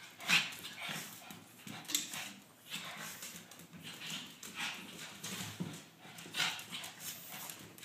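A dog banging its bowl against the floor: a run of irregular clattering knocks, roughly one a second.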